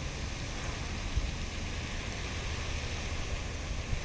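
Steady, even hiss of falling water from a pond's spray fountain, with a low rumble of wind on the microphone.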